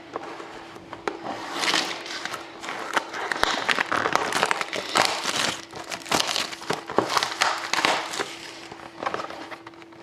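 Plastic shrink wrap on a hockey card box being cut and pulled off, crinkling and crackling in irregular bursts with sharp clicks, busiest from about a second and a half in to near the end.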